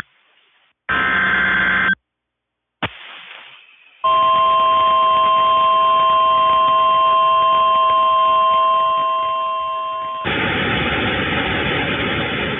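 NOAA Weather Radio Emergency Alert System header: a one-second buzzy SAME data burst. After a short silence and a click comes the steady 1050 Hz warning alarm tone for about six seconds, cut off by a couple of seconds of radio hiss.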